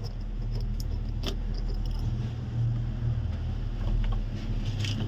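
Steady low electric hum of a small motor or fan running, with a few light metallic clicks of small tools.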